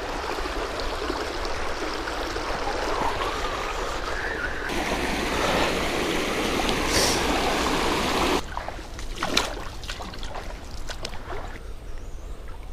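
Small creek's water rushing over riffles and a logjam, a steady even rush that jumps abruptly in level twice. About two-thirds through it drops to a softer trickle, with a few short clicks and knocks.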